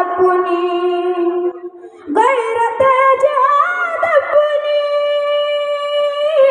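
A boy singing a nazm solo and unaccompanied into a microphone, drawing out long held notes. His voice breaks off briefly about a second and a half in, then comes back on a higher note that he holds to the end.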